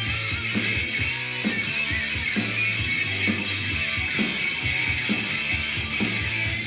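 Hardcore punk record playing through speakers: a distorted electric guitar riff over bass and drums.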